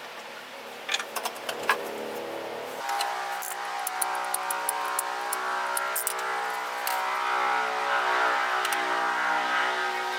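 Background music: a held chord of several steady tones comes in about three seconds in and sustains. A few light clicks come before it.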